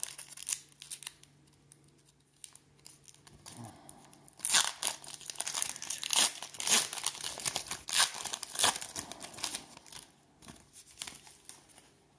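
Plastic wrapper of a football trading-card pack being torn open and crinkled, a run of sharp crackling rustles from about four to ten seconds in.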